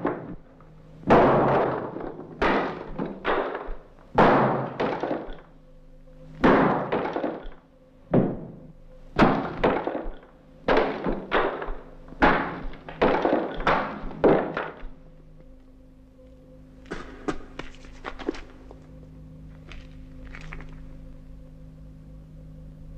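A sledgehammer breaking through a brick-and-plaster wall: a series of about fifteen heavy blows at irregular intervals of half a second to a second and a half, each with a crumbling crack. After that come fainter, scattered knocks.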